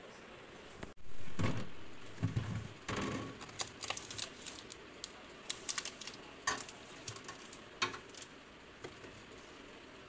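Packaged food being handled and set on a refrigerator's plastic shelves: scattered light clicks, taps and rustles. A louder sudden noise about a second in fades away over about a second.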